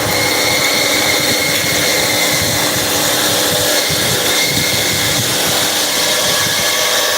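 CNC vertical machining centre running: a steady mechanical hiss with a high, constant whine.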